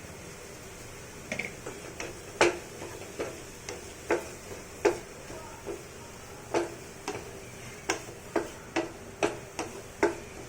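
Utensil knocking against a cooking pan while stirring seasoning into cooked chicken and capsicum: a string of sharp, irregular clicks, about one or two a second, each with a short ring.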